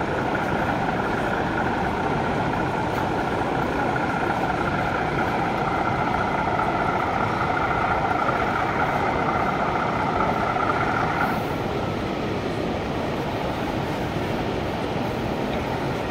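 Model train running on an exhibition layout: a steady motor whine over the hall's background noise, stopping about eleven seconds in.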